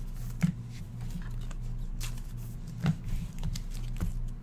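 Trading cards being handled and set down on a stack on a desk mat: scattered light clicks and taps, the sharpest about half a second in and near three seconds, over a steady low hum.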